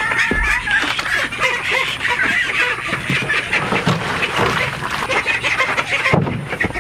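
A group of ducks quacking, many short calls overlapping without a break, with some scattered knocks and rustles mixed in.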